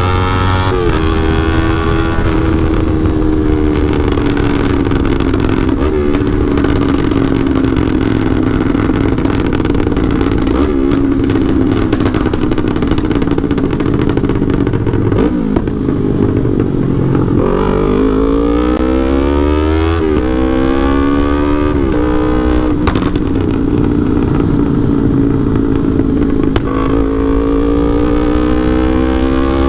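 Yamaha R3's parallel-twin engine through a Full Pro aftermarket exhaust, with an ECU remap, under way. The revs sag slowly for a while, then climb hard through several quick rising sweeps past the middle, one for each gear, and climb again near the end.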